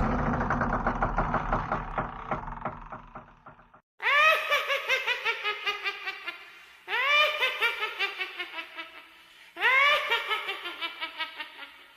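A high-pitched cackling laugh sound effect, played three times about three seconds apart. Each laugh starts loud and trails off in quick, fading ha-ha pulses. Over the first few seconds an earlier laugh dies away.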